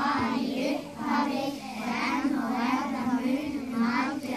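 A group of young children singing a song together, in continuous sung phrases.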